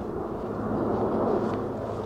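Airbus A400M Atlas's four TP400 turboprops droning in flight overhead: a steady low rumble with a held hum of propeller tones, swelling slightly about a second in.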